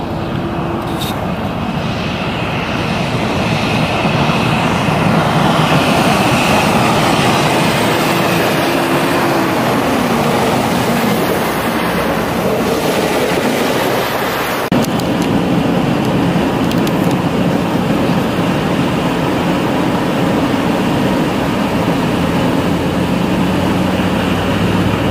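Snowplow trucks passing, their engines running and steel blades scraping over the snowy highway in a steady, loud rumble. About halfway through it changes abruptly to steady road and tyre noise from a car driving on the snow-covered highway.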